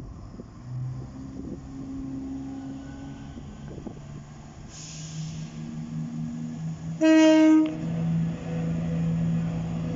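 Class 170 Turbostar diesel multiple unit approaching along the platform, its diesel engines running and growing louder. About seven seconds in it gives one short horn blast on a single note, the loudest sound here.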